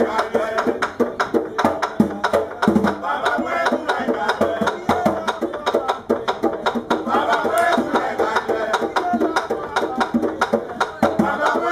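Tanbou bèlè hand drum played in a fast, continuous danmyé rhythm, with voices singing over it.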